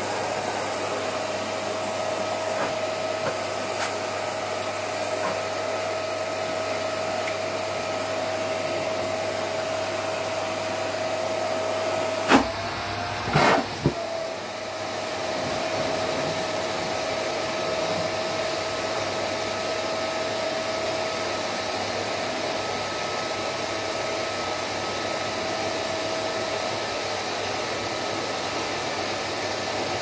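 Vacuum cleaner running steadily with a high motor whine, sucking down feathers and the shredded fabric of a down jacket through its hose. A few sharp knocks and clatters about halfway through.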